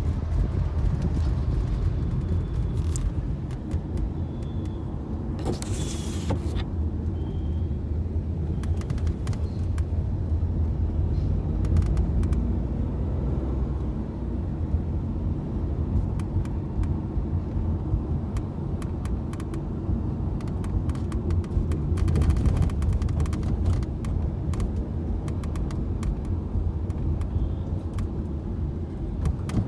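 Tata Nexon's sunroof rattling while the car is driven on a smooth road, heard from inside the cabin: irregular sharp clicks and ticks over a steady low rumble of road and engine noise. The clicks come in clusters, thickest in the middle and toward the end.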